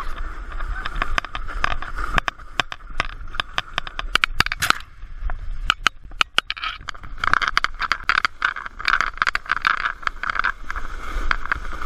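Plastic snow sled sliding fast down a snow slope: a continuous scraping hiss with many sharp knocks and clatters as it bumps over ruts, busiest in the second half.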